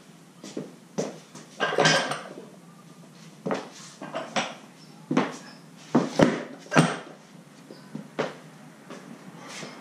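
Metal clinks and knocks of a loaded barbell's plates and sleeve being handled: about a dozen sharp strikes, the loudest a ringing clank about two seconds in.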